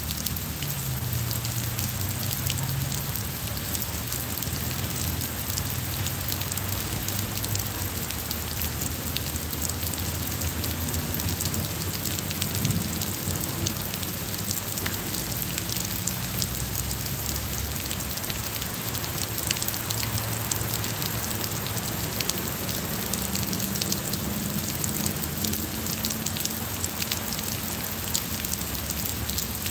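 Steady rain falling on paving and garden, a dense patter of separate drops over an even hiss, with a faint low hum underneath.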